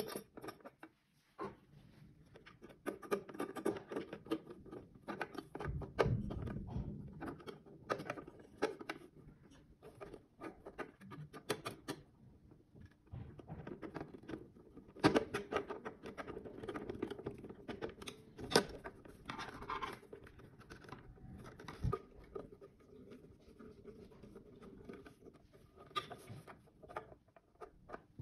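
Hand assembly of a fiber-optic pedestal: irregular clicks, scrapes and knocks as metal brackets are handled and screwed onto the black plastic base with a hand screwdriver, with a few sharper knocks about halfway through.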